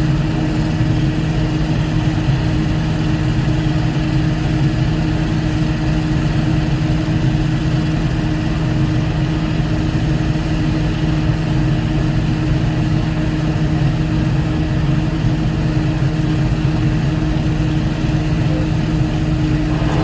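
Volvo 140E excavator's diesel engine running at a steady speed, with an even hum that does not rise or fall.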